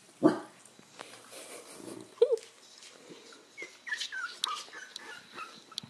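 Corgi puppies whimpering and squeaking: a short yelp about two seconds in, then a run of quick high squeaks that fall in pitch, with a few sharp clicks among them.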